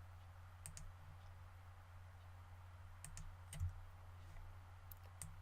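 A few faint, scattered clicks of a computer mouse and keyboard while mesh faces are selected, over a low steady hum.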